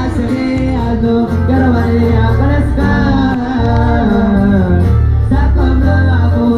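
Live band playing with a singer, with a strong low bass line under the sung melody.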